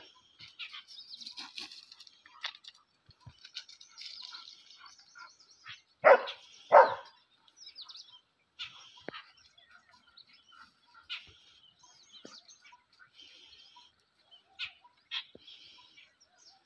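German shepherd barking twice in quick succession about six seconds in, with birds chirping in the background.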